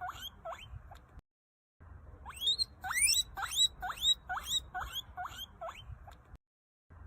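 A small rodent squeaking: a run of short rising squeaks, about two a second, broken twice by brief silent cuts.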